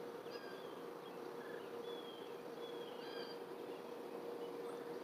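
Outdoor ambience: scattered short, high bird chirps over a steady low hum.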